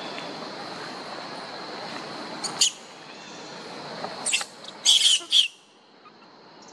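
Long-tailed macaques screaming in a fight: four short, shrill screeches between about two and a half and five and a half seconds in, over a steady background hiss.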